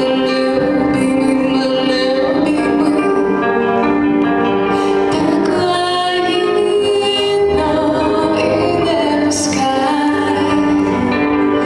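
A woman singing a song over instrumental backing, holding long notes.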